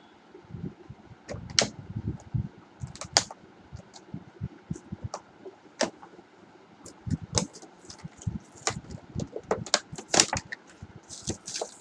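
Headphone box and packaging handled and opened by hand: irregular clicks, taps and rustles of cardboard and plastic.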